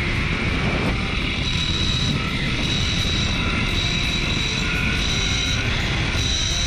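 Zipline trolley pulleys running along the steel cable: a steady rush of wind with a thin high whine that comes and goes.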